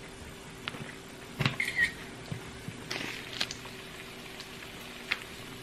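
Eggs frying quietly in a pan with a faint sizzle, over a low steady hum. A few sharp clicks and knocks of kitchen utensils come through, the loudest about one and a half to two seconds in.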